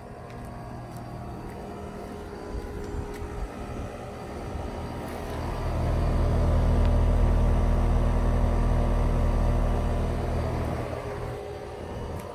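Carrier central air conditioner's outdoor condenser unit running, a steady low hum with fan noise. It grows much louder about halfway through and eases off near the end.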